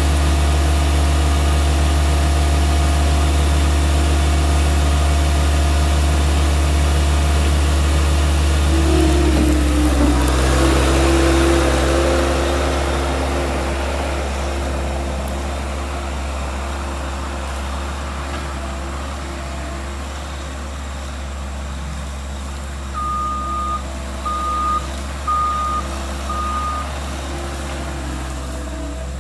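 Skid steer loader's engine running steadily while the machine is driven, with a shift in engine note about a third of the way in, then its backup alarm beeping four times near the end as it reverses.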